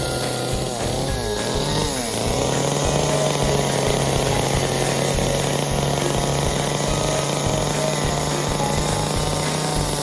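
Small chainsaw cutting into wood. Its engine pitch dips and rises a few times about a second in, then holds steady under load.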